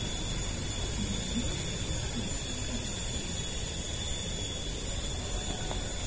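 Steady outdoor riverbank ambience: an even low rumble from the moving river and air, with a thin, high-pitched whine held at a constant pitch over it.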